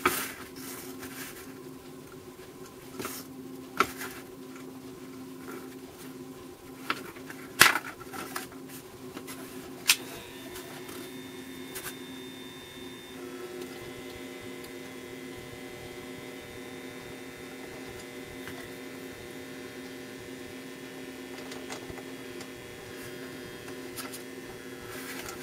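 Steady electrical hum, joined from about ten seconds in by a higher buzz with several steady overtones as the soldering gun comes on. Over it are scattered small clicks and taps from handling bare copper wire and the copper-clad board; the sharpest comes near eight seconds in.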